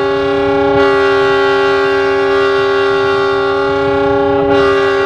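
Locomotive air horn sounding one long, unbroken blast, a steady chord of several notes, loud inside the cab, with slight swells about a second in and near the end.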